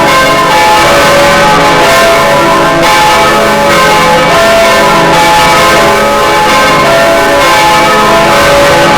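Swinging church bell ringing loudly and continuously, its strokes coming one after another so that the ringing tones overlap and never die away.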